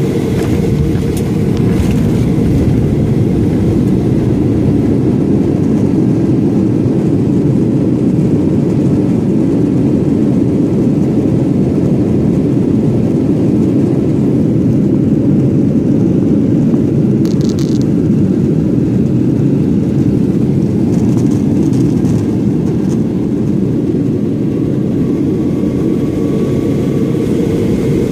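Jet airliner cabin noise while rolling down the runway after touchdown: a loud, steady low rumble of the engines and the wheels on the tarmac.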